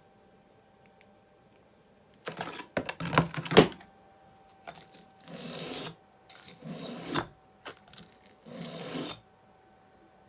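A steel edge rubbed dry on a whetstone in short rasping strokes to sharpen it. About two seconds in comes a louder cluster of strokes with sharp clicks, then three separate strokes, each under a second long.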